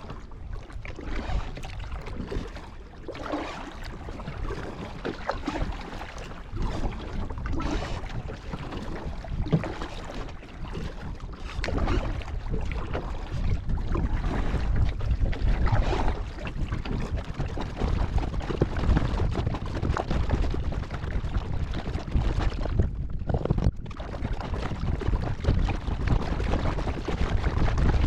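Kayak paddle strokes, the blades dipping and splashing in the water stroke after stroke, with wind buffeting the microphone; the low wind rumble grows heavier about halfway through.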